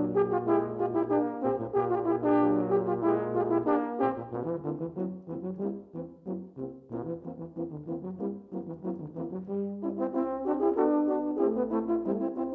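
A quartet of euphoniums playing in four-part harmony. For the first few seconds a held low note sounds under moving upper parts. Then the music turns to shorter, detached notes and grows quieter, before fuller chords return near the end.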